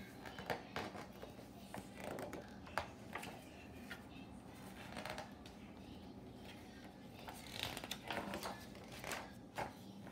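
Pages of a large hardcover picture book being turned by hand: soft paper rustles and scattered light taps and clicks, with a cluster of them near the end.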